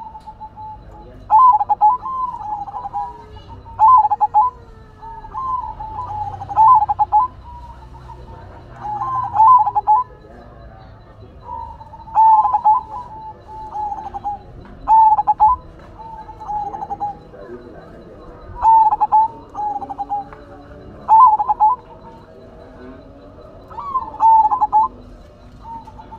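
Zebra dove (perkutut) of the silver colour variety in full song. Short cooing phrases of several quick notes repeat every two to three seconds.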